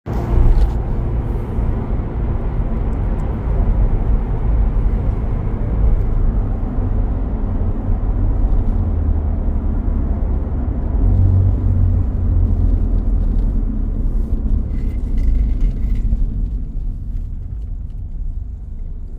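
Toyota Supra Mk4's 2JZ straight-six engine and road noise while driving: a steady low rumble that eases off near the end. The engine is running smoothly on a freshly replaced timing belt and auxiliary components.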